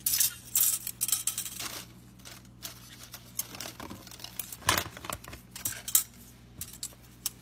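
Light clicks and clatters of plastic forks and spoons being handled on a granite countertop, coming in scattered taps.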